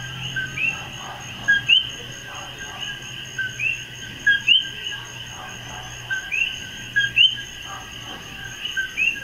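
Chorus of common coquí frogs calling their two-note 'co-quí', a short note followed by a higher rising chirp, repeated over and over by several frogs at once, over a steady high insect whine.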